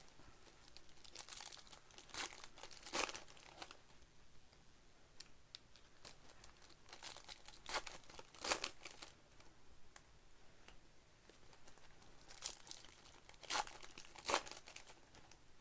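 Basketball trading-card pack wrappers being torn open and crinkled by hand, in three bouts of crackling tearing.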